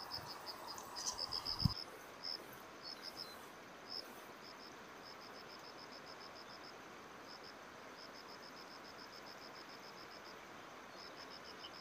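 Insect, likely a cricket, chirping in quick trains of short high pulses, about ten a second, broken by short pauses, over a steady outdoor hiss. A single sharp thump less than two seconds in is the loudest sound.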